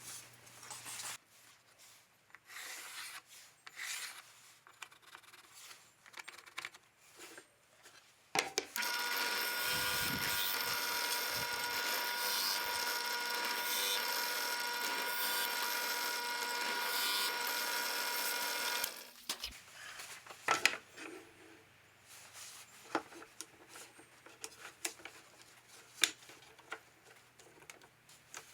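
A power tool runs steadily for about ten seconds in the middle, between stretches of wooden workpieces being handled with knocks, clicks and rubbing.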